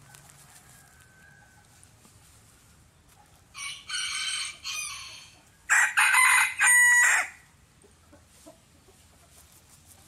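A rooster crowing twice: a quieter crow about three and a half seconds in, then a louder, closer crow in three parts about two seconds later.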